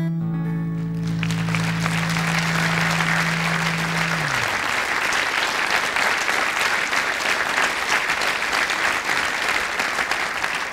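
Theatre audience applauding as the song's last held note on bass and acoustic guitar rings on and fades out about four seconds in. The clapping swells over the first second or so, then goes on steadily.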